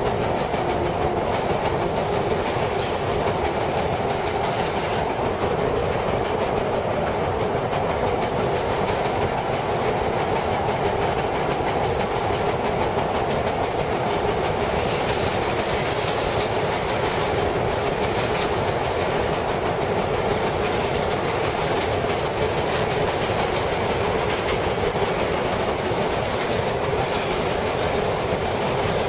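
Vintage R7A subway car running at speed, heard from inside the car: a steady loud rumble with the clickety-clack of wheels over rail joints and the pounding of flat wheels.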